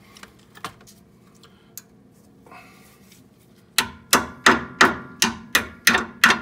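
A steel retaining clip being tapped home onto a brake hose bracket with a metal tool: about eight sharp, ringing metal strikes at roughly three a second, starting a little under four seconds in, after a few faint clicks.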